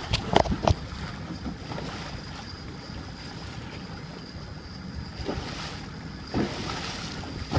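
Boat motor running in gear under steady wind noise on the microphone and water sounds, with a faint steady high whine. A few short thumps near the start and two more toward the end.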